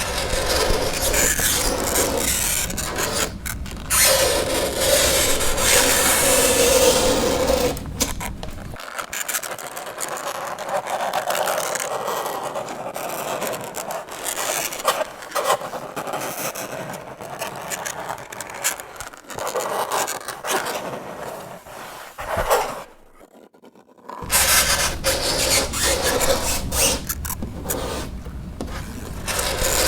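Fingernails scraping across a chalkboard in a run of short, rasping strokes, broken by a brief pause about 23 seconds in.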